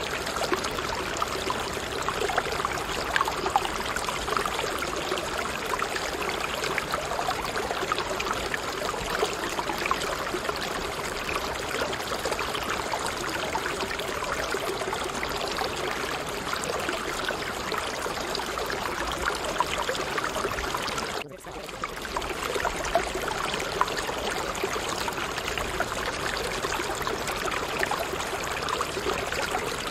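Steady rushing of running water, like a flowing stream. It drops out for a moment about two-thirds of the way through, then carries on unchanged.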